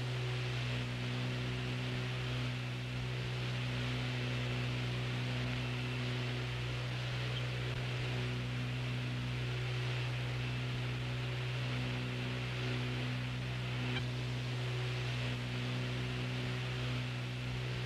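Steady low hum with a faint hiss: the background noise of a recorded air traffic control radio frequency with no one transmitting.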